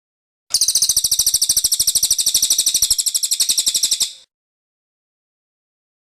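Cililin songbird singing one rapid, very high, even trill of quick repeated notes, which starts about half a second in and stops after about three and a half seconds.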